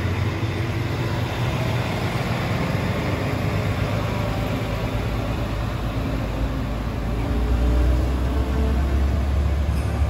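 Isumi Railway yellow diesel railcar's engine running steadily as the train pulls away from the platform, the low engine note growing louder about seven seconds in as it accelerates.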